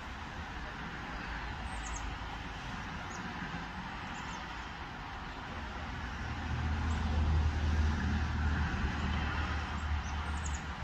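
Steady road-traffic noise, with a vehicle's low rumble swelling about six seconds in and easing off near the end.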